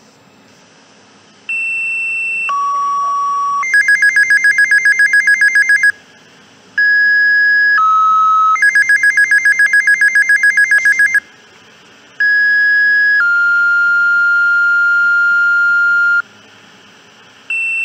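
Fire dispatch two-tone sequential paging tones coming through a Unication G5 pager's speaker: pairs of steady tones, each a higher tone of about a second followed by a lower one, sent for one station after another. After each of the first two pairs the pager sounds its own alert, a rapid beeping of about two seconds, marking a decoded page. The third pair ends in a long held tone of about three seconds, and a fourth page begins near the end.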